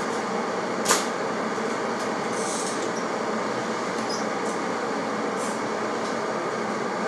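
Blaupunkt EKG501BK glass electric kettle heating water: a steady rushing rumble as the water comes towards the boil, with one sharp click about a second in.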